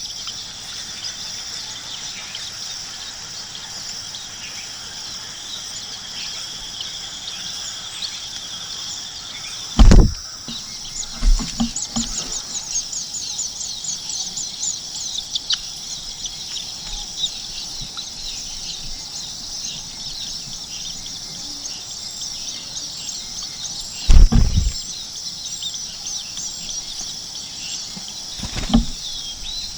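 Nestling birds giving rapid, high begging chirps, in a busy burst about a third of the way in and scattered after, over a steady insect trill that stops about a third of the way in. A few loud, low thumps are the loudest sounds, one just before the chirping burst, one about four-fifths of the way in and one near the end.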